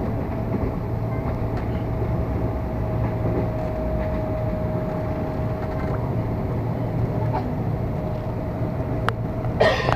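KRL Commuterline electric multiple unit running, heard from inside a packed carriage: a steady low rumble with a steady whine above it, and a brief loud clatter near the end.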